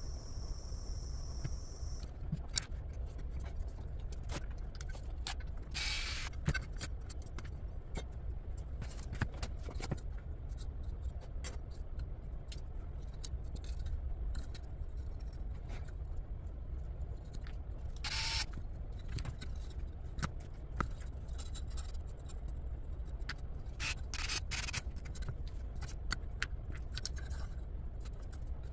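A cordless rotary tool whines steadily as it drills holes in a chassis plate, stopping about two seconds in. After that come scattered clicks, taps and short scrapes of small parts and screws being handled.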